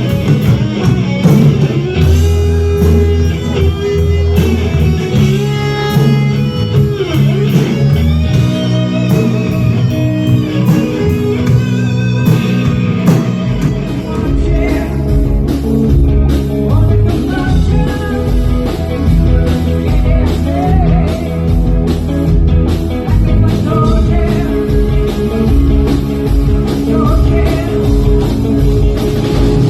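Rock song with electric guitar and a singing voice; the bass and drums come in heavier about halfway through.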